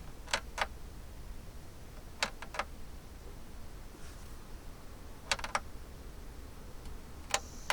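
Sharp plastic clicks in short groups as the mini air conditioner is handled and its controls pressed: two near the start, a few about two seconds in, a quick three past five seconds and one more near the end, over a steady low hum.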